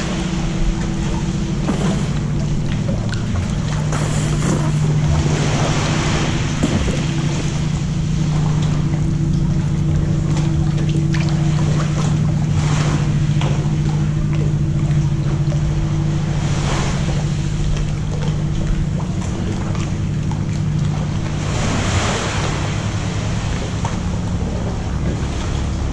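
Sea water sloshing and lapping in a rocky sea cave, swelling into louder splashing surges every two to four seconds, over a steady low hum.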